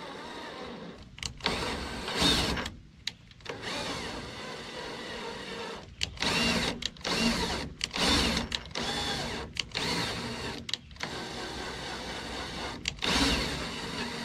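Cordless drill turning a thread tap into a metal fitting, its motor whirring in repeated short bursts that start and stop about a dozen times and shift in speed, beginning about a second in: threads being cut for a Zerk grease fitting.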